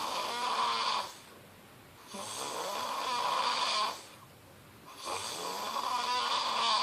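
A man snoring in a steady rhythm: one snore fades about a second in, another runs from about two to four seconds in, and a third starts about five seconds in. Each snore is a noisy, hissy sound nearly two seconds long, with a quieter pause of about a second between.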